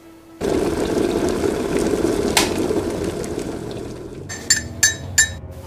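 Liquid poured in a steady stream into a china cup for about four seconds, fading out. Three quick, sharp clinks follow near the end.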